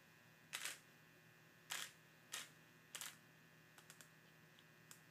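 Armstrong click-type micrometer torque wrench having its handle twisted by hand to dial in a new torque setting: four short scraping rustles half a second to a second apart, then a few faint ticks near the end.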